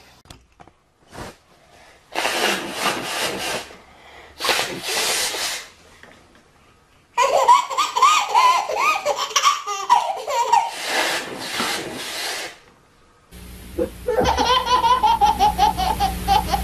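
Babies laughing: short bursts around two and five seconds in, then a long run of high-pitched belly laughter from about seven seconds. Near the end another baby laughs over a steady low hum.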